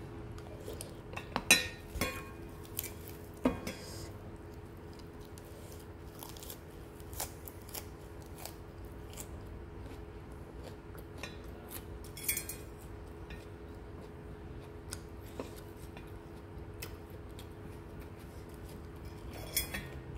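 Close-up eating sounds: a wooden spoon and fork clicking and scraping against a stainless steel bowl of noodle soup, with chewing between the taps. The taps come irregularly, the sharpest about a second and a half in, over a steady low hum.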